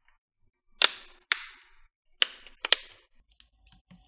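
Plastic snap clips of a Toshiba Satellite C50 laptop's bottom cover clicking into place as its edges are pressed down: four sharp snaps, then a few faint ticks near the end. The clicking is normal and means the cover is seating onto the chassis.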